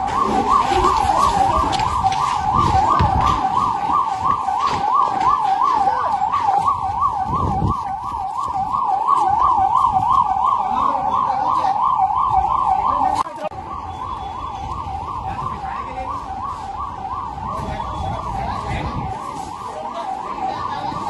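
Emergency vehicle siren sounding a fast, regular up-and-down yelp. About thirteen seconds in it drops in loudness and the rapid warble becomes less distinct.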